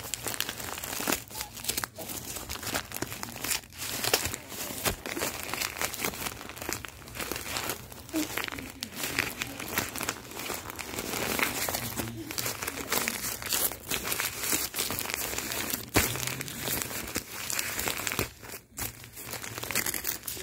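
Lined notebook paper and a clear plastic bag being crumpled and pulled open by hand: continuous irregular crinkling and rustling.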